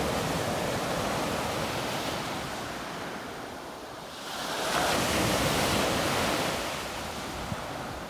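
Mediterranean surf: small waves washing onto the beach. It swells into a louder rush a little past halfway, then fades again.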